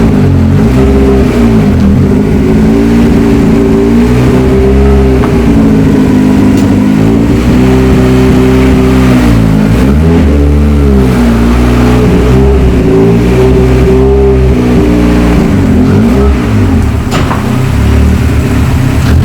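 Ford Escort RS Cosworth's turbocharged four-cylinder engine running loud on the move, the revs rising and falling several times. The revs dip clearly about halfway through and again near the end.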